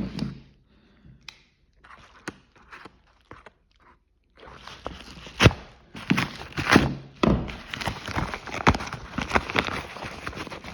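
Parcel packaging being worked open by hand: a few scattered clicks and taps, then from about four seconds in continuous rustling and crinkling with sharp knocks and snaps.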